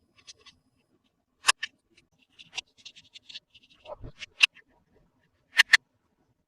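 Hands unboxing and handling small plastic toy pieces and packaging: a scattering of sharp clicks and taps, a quick pair near the end, with scratchy rustling in between and a soft thud a few seconds in.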